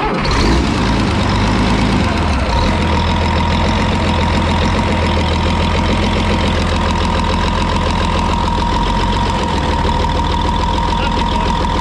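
Freshly rebuilt Scania 113 straight-six diesel engine idling steadily on one of its first runs, with a steady high tone over the engine note. It is being run to check that oil reaches the rocker shafts.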